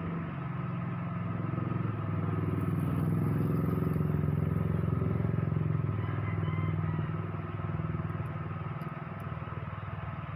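An engine running, a low steady hum that grows louder over the first few seconds and eases off toward the end.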